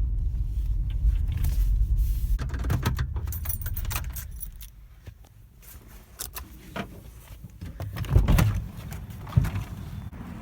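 Low car rumble that drops away about four seconds in, with keys jangling and a run of sharp clicks and knocks; the loudest knock comes about eight seconds in.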